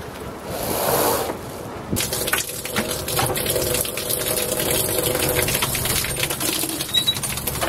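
A sailboat's winch being cranked with a winch handle, its ratchet pawls clicking rapidly, over a faint steady hum. Before the cranking starts, about two seconds in, there is a swell of rushing noise.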